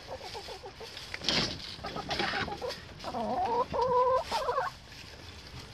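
Domestic hens clucking in short bursts, with a longer, louder run of calls in the second half. A brief knock about a second in.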